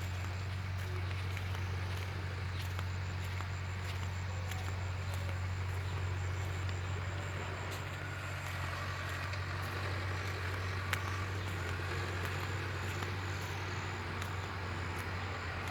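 A large engine running steadily with an even low drone, faint high clicks ticking over it.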